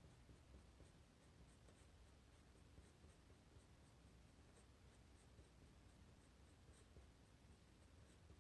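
Pen nib scratching short, quick strokes on paper, faint, about two strokes a second.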